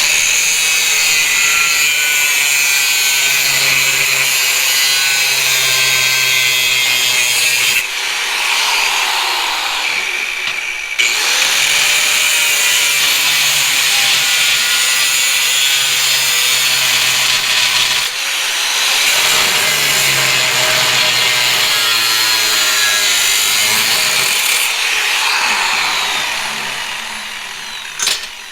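Angle grinder with a cut-off wheel cutting through steel angle iron in several long passes, its motor pitch sagging and recovering as the wheel bites, then winding down near the end.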